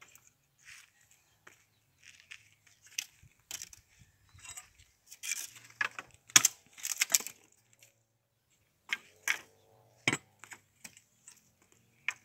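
Wood bonfire crackling, with irregular sharp snaps and pops that come thickest midway.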